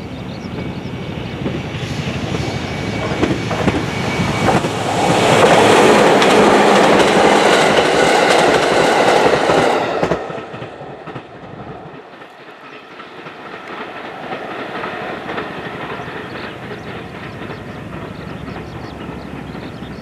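JR 211 series 3000 electric multiple unit passing by, its wheels clacking over the rail joints. The sound grows louder, is loudest for about five seconds, then drops off suddenly about halfway through, leaving a fainter rumble as the train moves away.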